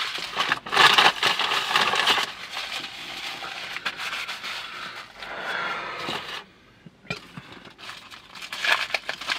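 Foil sandwich wrapper crinkling and rustling as it is handled and unwrapped, in a long run of crackles that stops briefly about two-thirds of the way through and then starts again.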